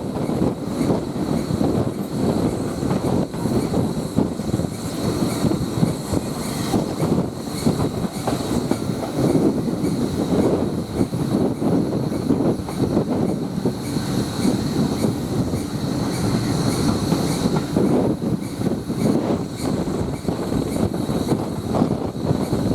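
Steam-hauled heritage railway coach running along the line, heard from on board: a steady rumble with continual clatter of the wheels over the rail joints and a faint steady high whine.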